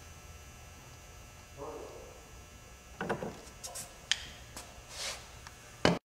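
Steel bolt cutter jaws knocking and clicking against a steel padlock protector and padlock, a few sharp metal knocks with the loudest near the end, over a low steady electrical hum.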